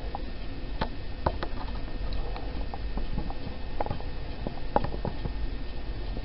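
Irregular small clicks and ticks, roughly two a second, over a low steady hum.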